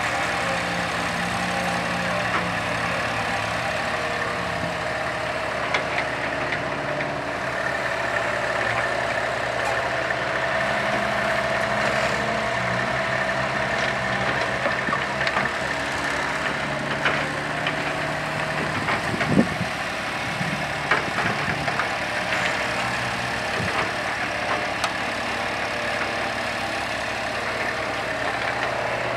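An old mini crawler excavator's diesel engine running steadily while it digs, with scattered short knocks and a brief rise in engine pitch about two-thirds of the way through.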